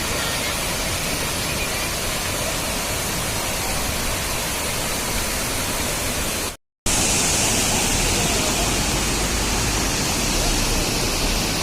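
Waterfall rushing in a steady, even roar of falling water. It cuts off abruptly for a moment about two-thirds of the way through and comes back hissier.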